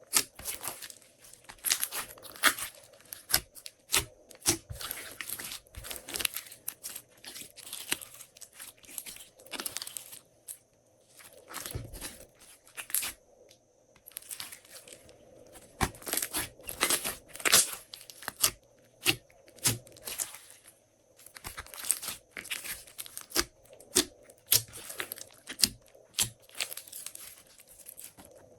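Glossy slime being squeezed, stretched and folded by hand, giving a run of irregular sticky crackles and pops, with a couple of brief pauses.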